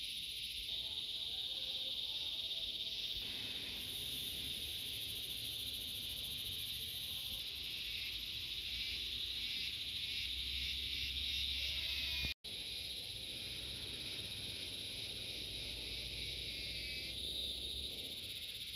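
A dense, steady chorus of insects chirring at a high pitch, with a faint low rumble beneath. The sound drops out for a split second about twelve seconds in, then carries on.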